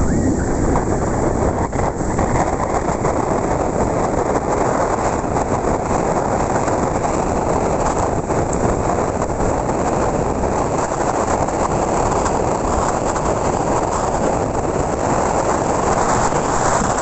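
Motorcycle riding along a concrete road: a steady, dense rumble of engine, tyres and rushing air, with no clear engine note standing out.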